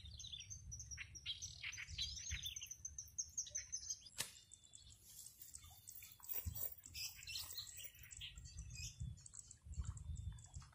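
Small birds chirping and calling, faint, with a low rumble underneath and a single click about four seconds in.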